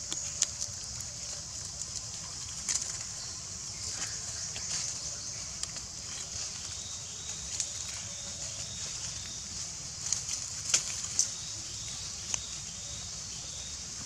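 Outdoor forest ambience: a steady high-pitched hiss, with scattered crackles of dry leaf litter as the macaques shift, a cluster of them about ten to eleven seconds in.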